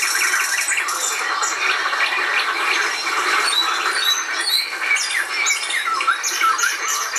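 A dense chorus of many birds chirping and chattering at once, a steady mass of short calls, with a few sliding whistled notes about three quarters of the way through.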